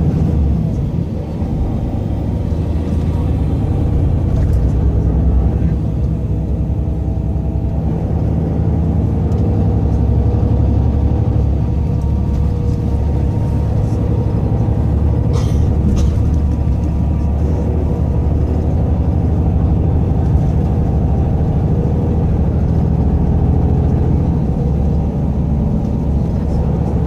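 City bus under way, heard from inside the cabin: a steady low engine and road rumble, with one short, sharp high noise about fifteen seconds in.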